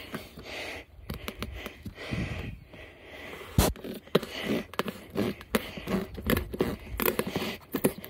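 Albainox "Glock"-style fixed-blade knife being worked through the hard rubber of an old tyre: irregular scraping and creaking as the steel blade cuts, with a sharp knock about three and a half seconds in.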